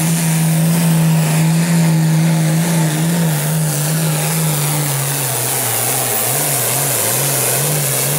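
Turbocharged diesel engine of a red International pro stock pulling tractor running flat out while dragging the weight sled. Its pitch holds steady, then from about five seconds in it sags and wavers up and down as the engine pulls down under the sled's load.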